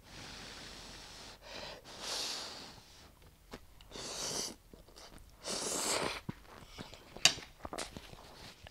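A person slurping instant noodles into the mouth: three airy slurps, each about half a second long and a second and a half to two seconds apart, then a few short wet mouth clicks of chewing near the end.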